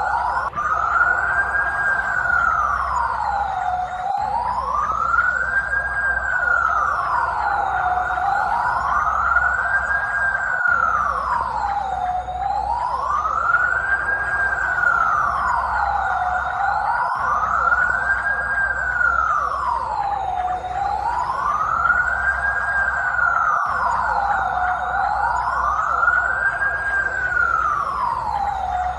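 Police car's electronic siren on a slow wail, its pitch rising and falling smoothly about once every four seconds, over a steady low rumble.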